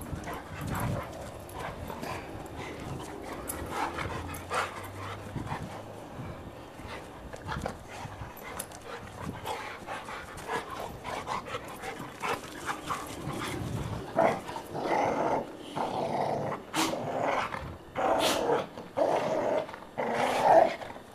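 Two golden retrievers play-fighting: play growls mixed with the scuffle of their wrestling, the growls getting louder and more frequent over the last several seconds.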